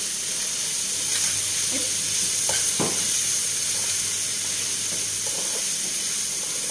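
Food sizzling in a cooking pan while being stirred, a steady frying hiss with a couple of short knocks near the middle.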